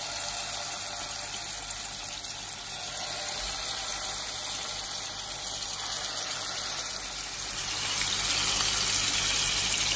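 Marinated bone-in chicken pieces sizzling in shallow oil in a nonstick pan as they are laid in by hand. The sizzle is a steady hiss that grows louder from about seven and a half seconds in, as the pan fills with pieces.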